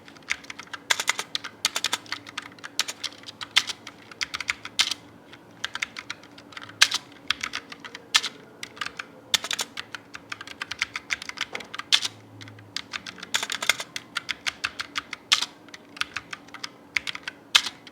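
Typing on a DA Meca RGB LP low-profile mechanical keyboard with OTEMU Brown tactile switches: irregular keystroke clicks, several a second in quick runs with short pauses between.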